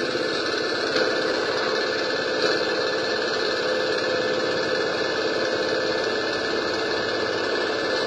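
Steady engine-like drone at a constant idle, with no change in speed.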